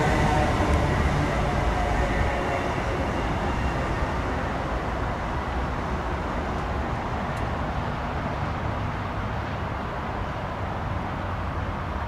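Class 317 electric multiple unit running away along the track, its hum and wheel rumble fading steadily as it draws off into the distance.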